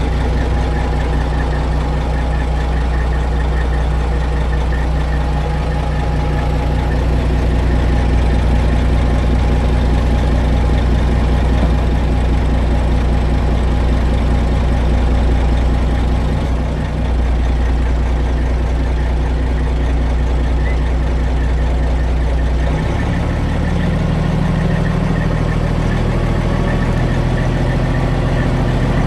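Detroit Diesel Series 60 12.7-litre diesel in a dump truck running steadily, driving the hoist as the dump bed is raised. About three-quarters of the way through, the engine speed steps up and holds at a higher note.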